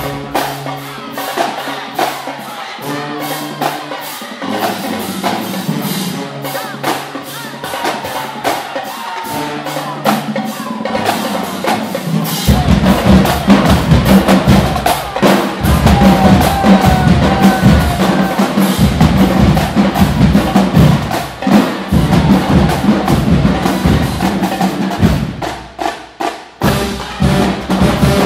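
A marching drumline plays a cadence. The first part is lighter snare and tenor-drum patterns with dense stick strikes. About halfway through, the bass drums come in and the full line plays louder, with a brief drop-off near the end before it picks up again.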